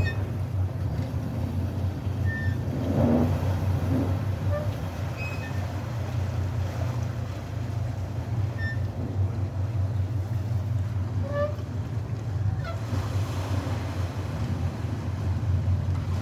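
Azimut 27 Metri motor yacht's diesel engines running with a steady, pulsing low rumble.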